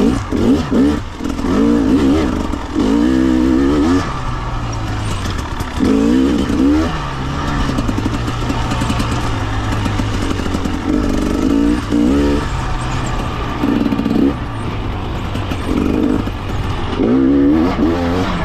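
300 cc fuel-injected two-stroke dirt bike engine being revved in about six short bursts of throttle, each rising and falling in pitch, over a steady low engine drone.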